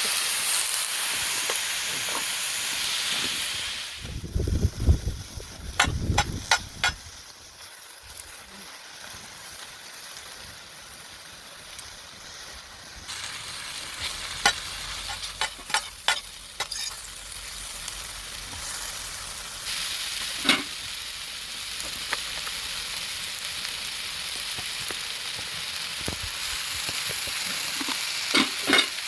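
Food sizzling on a fire-pit grill. The sizzling drops away about four seconds in, with a few low knocks and sharp clicks of handling. It builds again later, with scattered clicks.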